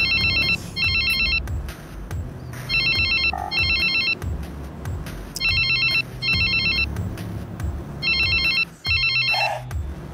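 A telephone ringing in a double-ring pattern: two short rings, a pause, repeated four times.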